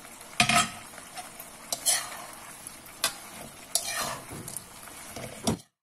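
Fried cauliflower florets being stirred and tossed in a wok of sizzling Manchurian sauce: a steady sizzle with the spatula knocking and scraping against the pan about half a dozen times. The sound cuts off suddenly near the end.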